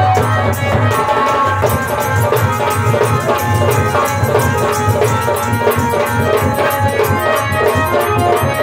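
Live folk-band instrumental: a dholak beats a steady, driving rhythm under a held melody line, with fast metallic jingling on top.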